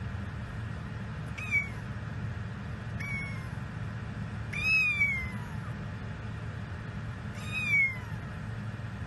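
Young kitten meowing four times: short, high-pitched mews that fall in pitch, the third the longest and loudest, over a steady low hum.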